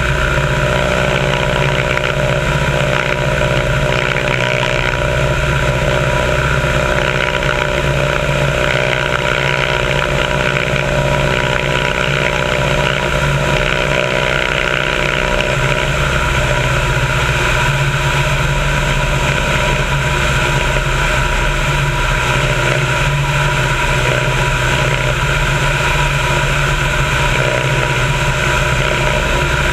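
Biplane's piston engine and propeller running steadily in flight, with wind rushing over the wing-mounted camera's microphone.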